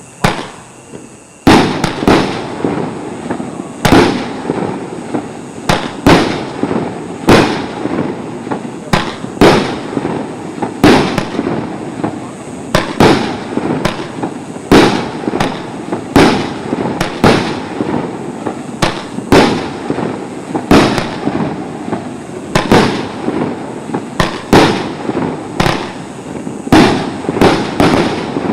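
Multi-shot consumer fireworks cake firing a steady run of shots, a sharp bang roughly every second, each trailed by a fading echo.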